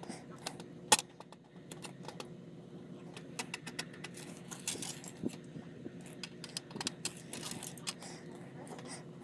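Irregular small clicks, taps and light rattles of small hard parts being handled, with one sharper click about a second in.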